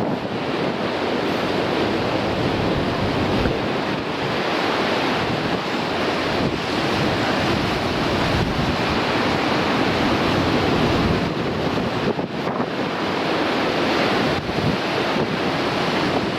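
Rough sea surf breaking against coastal rocks in a steady wash of noise, with strong wind blowing across the microphone.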